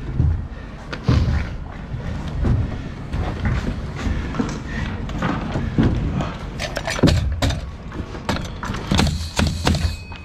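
Knocks and thuds of timber framing work, then a pneumatic coil framing nailer firing a few sharp shots in the last few seconds, with a short hiss of air.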